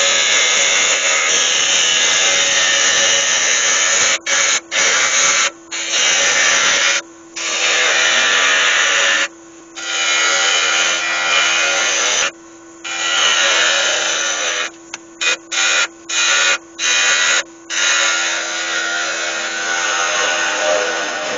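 A gouge cutting a spinning oak lid on a wood lathe: a steady hiss of the cut, broken from about four seconds in by a run of short gaps as the tool is lifted off and set back. In the gaps the lathe's steady motor hum can be heard.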